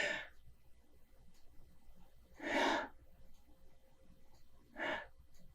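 A man breathing audibly three times, short puffs of breath about two seconds apart.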